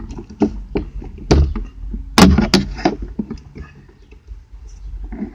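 A flathead screwdriver prying at a plastic cover on a glove compartment: a series of sharp plastic clicks and knocks, the loudest about a second and two seconds in.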